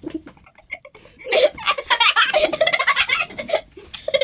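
Children laughing hard in quick, choppy bursts of giggles; quieter at first, then loud from about a second in.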